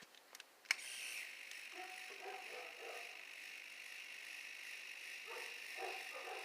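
A 3D printing pen's filament feed motor starts with a click just under a second in, then runs with a steady, high geared whir as it pushes plastic filament through the hot nozzle.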